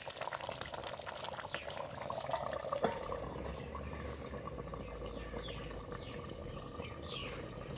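Chicken and potato curry simmering in a pot on a chulha, bubbling steadily with small pops and ticks. One sharp click about three seconds in.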